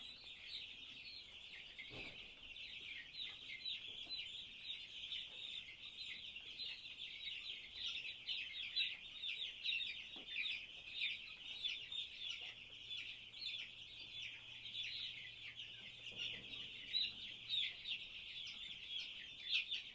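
A flock of week-old broiler chicks peeping continuously, many high chirps overlapping. The chicks are wet and feeling cold.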